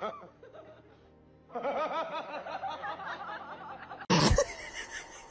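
Laughter in a quick run of chuckles over background music; about four seconds in, a short loud burst cuts in.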